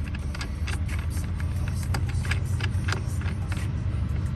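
A steady low hum like a car engine idling, under a run of light clicks and knocks from the steering wheel and its fittings being handled and pulled off the column.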